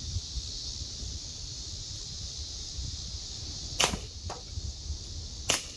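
Two shots from a Gamo P-430 CO2 pellet pistol, sharp cracks about a second and a half apart, the first near the four-second mark, with a fainter tick just after the first. A steady high-pitched hiss runs underneath.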